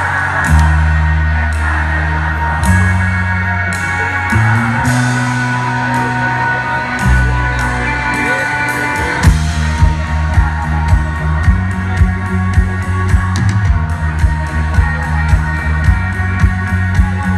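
Live rock band playing through a festival PA, heard from far back in the crowd: held bass notes under guitar, with the drum kit coming in on a steady beat about nine seconds in.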